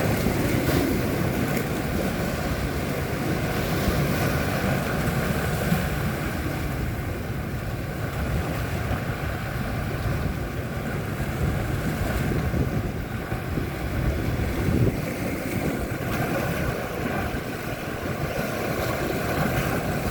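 Sea waves washing with wind buffeting the microphone: a deep, steady rushing noise.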